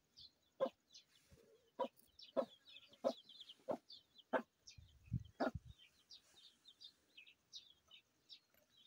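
A hen clucking repeatedly, one short cluck about every half second or so, while small birds chirp high and fast in the background. A low thud sounds about five seconds in.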